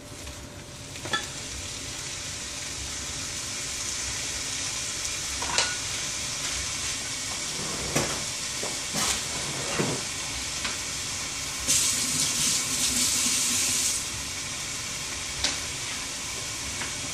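Ground beef sizzling in a hot frying pan, the sizzle growing louder over the first few seconds as it takes hold. A few sharp clicks of a utensil against the pan, and a louder stretch of hissing lasting about two seconds, some twelve seconds in.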